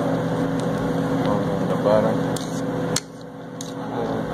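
A steady machine hum with a few light clicks and scrapes of a plastic rice paddle against a rice cooker's inner pot as cooked rice is fluffed. The hum cuts out suddenly about three seconds in and slowly comes back.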